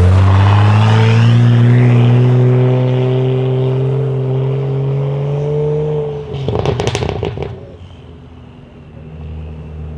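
BMW M2 F87's turbocharged straight-six, breathing through a decatted Fi exhaust, accelerating hard, its note rising steadily for about six seconds. It ends in a short, loud burst of exhaust crackles and pops as the throttle comes off. After that a much quieter engine hum is left.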